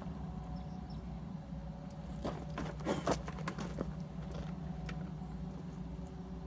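Husqvarna 455 Rancher two-stroke chainsaw running at a steady, even pitch while ripping along a cedar log in a chainsaw mill, heard from some distance, with a few light clicks and rattles a couple of seconds in.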